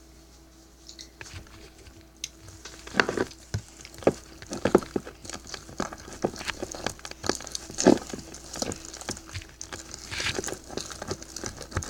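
Thickening slime being stirred and worked with a stick: a run of irregular sticky clicks and squelches, sparse at first and busier from about three seconds in.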